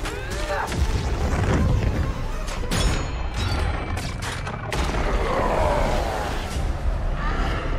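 Action film sound mix: deep booms and a steady low rumble, with a quick run of gunshot cracks in the middle, over orchestral score music.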